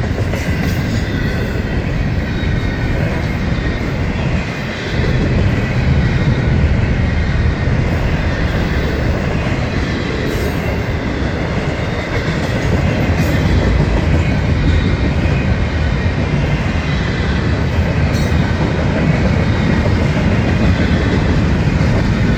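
Long intermodal freight train rolling past: a steady loud rumble of cars on the rails with clickety-clack of wheels over the track, growing a little louder about five seconds in.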